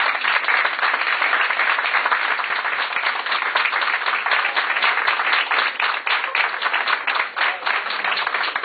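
Audience applauding, a dense run of clapping that thins out near the end.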